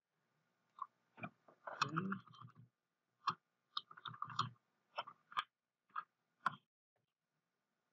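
Computer mouse clicking: about a dozen short, irregular clicks with a brief cluster of small clicks and rustle near two seconds in.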